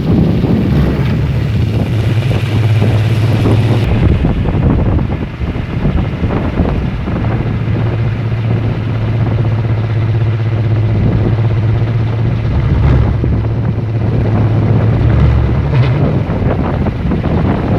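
Kolecer, a large wooden wind propeller on a pole, spinning in the wind with a loud, steady, thunder-like low drone, over wind noise on the microphone. The drone weakens about four seconds in and comes back strongly a few seconds later.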